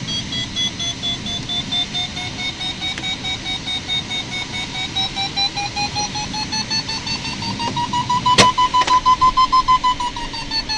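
Glider's audio variometer beeping, its tone rising in pitch and the beeps quickening over the first eight seconds or so, then holding steady: the sign of a climb that is getting stronger. A sharp click about eight seconds in, over a steady rushing background.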